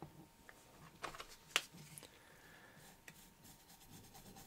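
Faint scattered clicks and taps of a metal forceps-held diecast part against a glass jar, the sharpest about one and a half seconds in. Near the end, light scrubbing with a toothbrush as softened paint is brushed off the part.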